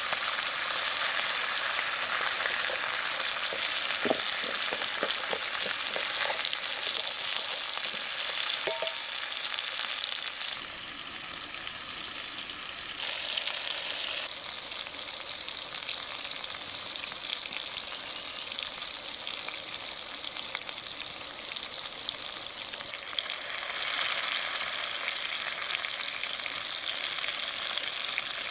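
Pork belly, enoki mushrooms and green pepper sizzling in a hot wok while being stir-fried with wooden chopsticks, with a few light taps of the chopsticks on the pan in the first third. The sizzle turns quieter for a long stretch in the middle, then grows louder again near the end.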